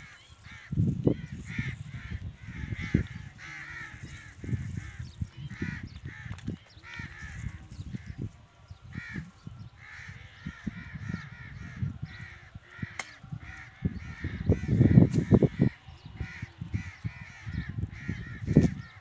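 Birds calling over and over in runs of short, wavering notes, with irregular low rumbles underneath, the loudest about three-quarters of the way through.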